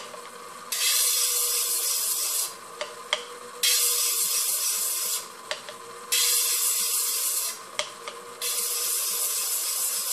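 Gemstone being ground against the spinning lap of a faceting machine in four strokes of about two seconds each, a hissing grind over the steady hum of the lap's motor, with a few light clicks between strokes. These are the facets being cut along the stone's short edges.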